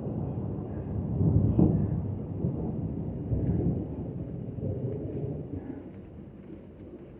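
Thunder rumbling. It swells about a second and a half in and again around three and a half seconds, then slowly fades away.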